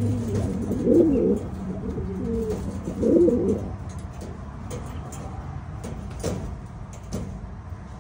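Domestic pigeons cooing, with two loud rolling coos about a second in and around three seconds in.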